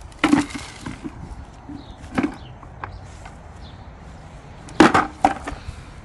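The pink plastic drum of a Hetty vacuum cleaner knocking as it is tipped out to empty leaves and dirt: four hollow knocks, one early, one about two seconds in, and two close together near the end.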